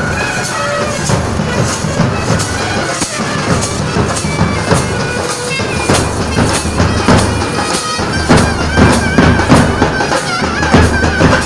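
Procession band music: bass drums and snare drums beating a steady rhythm, with a reedy wind instrument playing a wavering melody that comes forward in the last few seconds.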